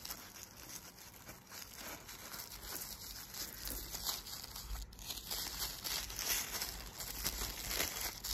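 Brown paper wrapping crinkling and rustling as it is handled and unwrapped, in irregular crackles that grow busier about halfway through.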